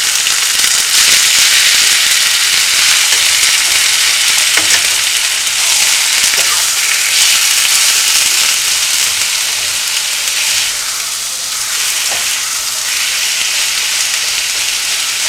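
Seasoned chicken breast searing in hot oil in a skillet: a steady, loud sizzle with a few sharp pops of spattering oil.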